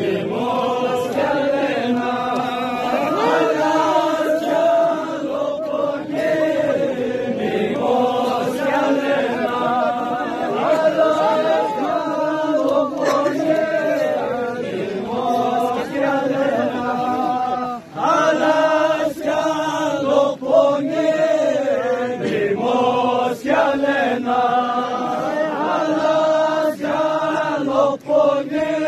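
Voices chanting a Balti noha, a Shia mourning lament, in a slow melody whose pitch bends and wavers, with a choral sound.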